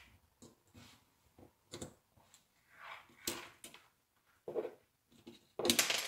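A pointed blade prying at the coil spring inside a plastic seat belt extender arm: scattered short clicks and scrapes of metal on plastic, with a louder clatter near the end.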